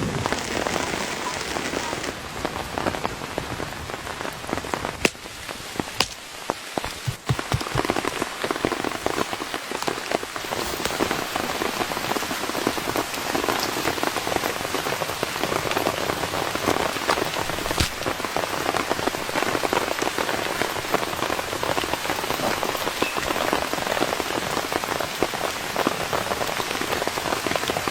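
Steady rain falling, a dense patter of drops that eases briefly about six seconds in.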